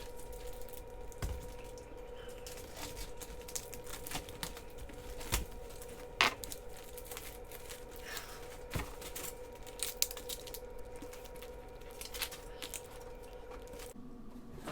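Packaging being handled while a shipping box is unpacked: rustling and crinkling with scattered sharp clicks and crackles. A faint steady hum underneath stops near the end.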